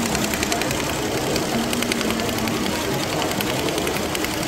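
Tajima multi-needle commercial embroidery machine stitching a cap, its needle striking in a fast, steady run of clicks.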